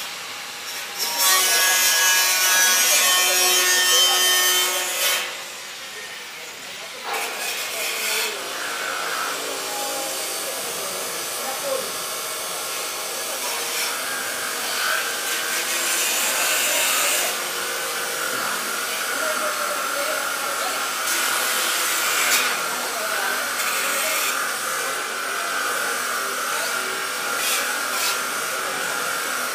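A power tool working on stainless steel. A loud, ringing screech of metal lasts about four seconds near the start, then the tool runs more quietly and steadily against the metal with a thin high whine.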